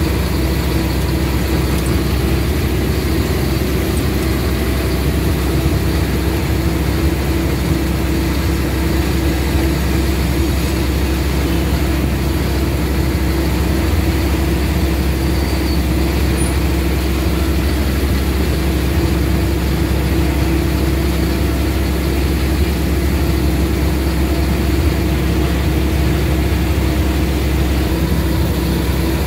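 A vehicle's engine and road noise heard from inside the cabin while driving at a steady speed: a constant low drone with a steady hum, no changes in pitch.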